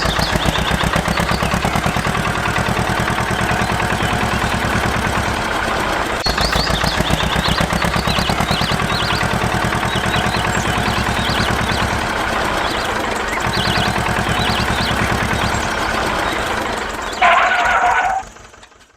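Small engine running steadily with a fast, even beat. A brief, louder, higher-pitched sound comes near the end, just before everything cuts off.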